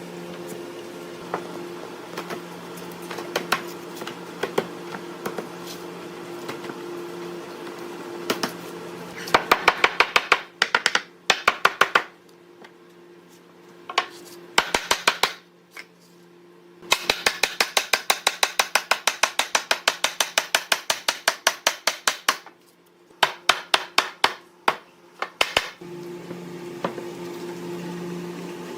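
Hammer blows on wood in quick, evenly paced bursts of about four or five strikes a second, starting about nine seconds in and broken by short pauses, over a steady low hum with a few scattered taps before them.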